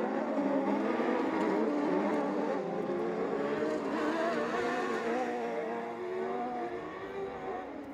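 Several autocross sprint car engines running at once, their pitches wavering up and down, fading toward the end.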